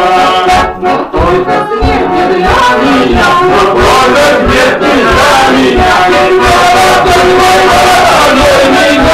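A man singing a Cossack folk song at full voice, with others joining in, to a garmon (Russian button accordion) playing a steady beat. The sound dips briefly about a second in.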